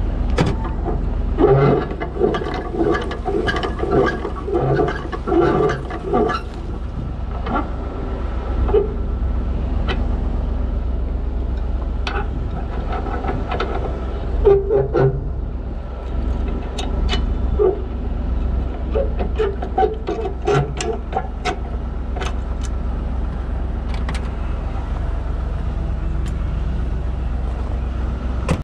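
A vehicle engine running steadily at idle, with repeated knocks and clatter of things being handled and set down in bursts over it.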